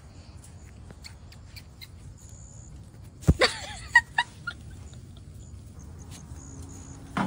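Dachshund puppies yipping and squeaking in short high cries, with a sharp thump about three seconds in followed by a brief whine and a couple of louder yips.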